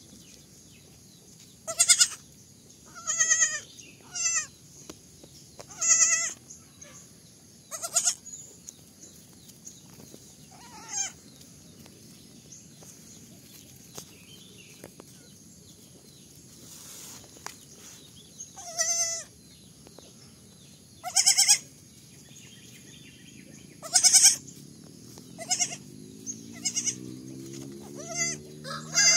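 Baby goat bleating in short, high, wavering calls, about a dozen of them with quiet pauses between.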